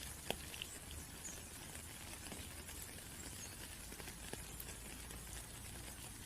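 Steady rain, with scattered individual drops pattering and ticking.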